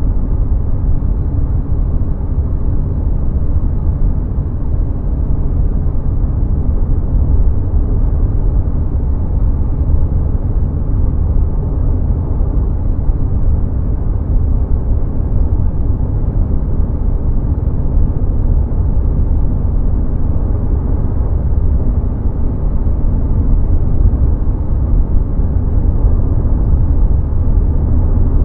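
Car cruising at highway speed: a steady low rumble of tyres on the road and the engine.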